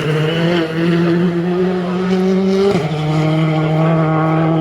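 Rally car's 1.6-litre turbocharged four-cylinder engine pulling hard under load. Its pitch climbs slowly, then drops sharply as it upshifts near the middle, and it pulls on again in the next gear.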